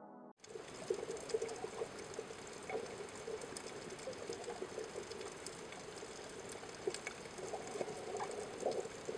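Steady bubbling, trickling water sound with many small pops scattered through it, starting abruptly just under half a second in.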